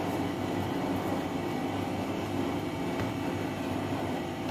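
Steady low mechanical hum of room background noise, with a couple of faint soft taps from hands patting dough.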